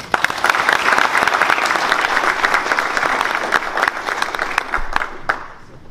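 Audience applauding, many hands clapping together, thinning to a few last separate claps near the end.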